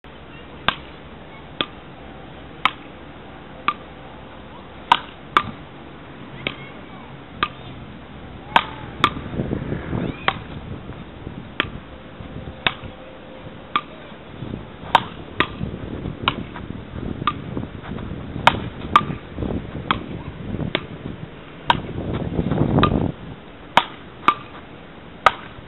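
A small ball hit back and forth with beach paddle-ball rackets: a rally of sharp knocks, about one a second, some louder and some fainter, the gap sometimes shorter.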